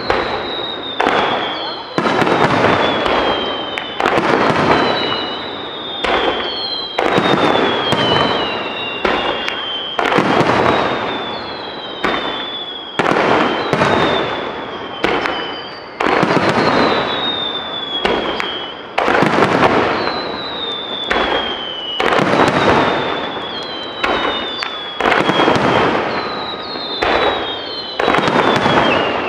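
Fireworks display: aerial shells bursting in quick succession, a sharp bang about every second or so, each trailed by crackling. High whistles falling in pitch run between the bangs.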